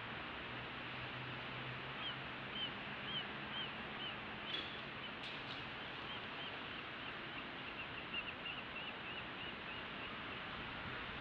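A run of short, high chirps, repeated about two a second and quickening near the end, over a steady hiss, with a few faint clicks about halfway through.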